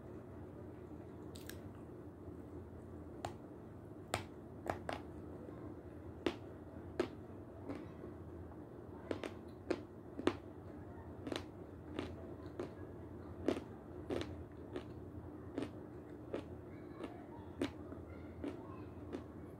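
Close-up chewing of a chunk of Seversky edible chalk: irregular sharp crunches, roughly one or two a second, over a faint steady hum.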